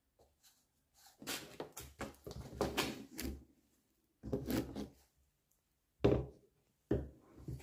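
Plastic parts of a 13-pin trailer plug being handled and fitted together: clusters of clicks and rubbing scrapes, with short pauses between.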